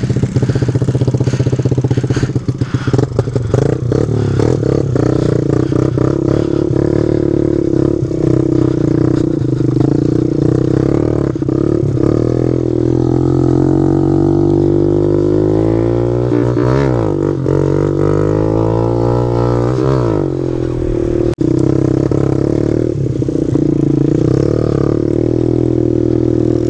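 Kawasaki KLX110 pit bike's small single-cylinder four-stroke engine running as the bike is ridden, with some clattering early on. Through the middle the revs rise and fall several times.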